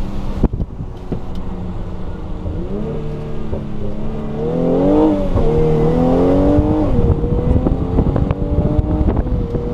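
Mercedes-AMG GLC43's twin-turbo V6, heard from inside the cabin, accelerating hard: the revs climb, fall sharply at an upshift of the nine-speed automatic about five seconds in, climb again and fall at a second shift about seven seconds in, then run steady.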